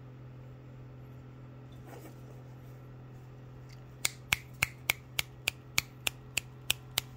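About a dozen sharp hand-made clicks in a steady series, about three a second, starting about four seconds in, to coax a swimmer puppy into walking. Under them runs a steady low hum.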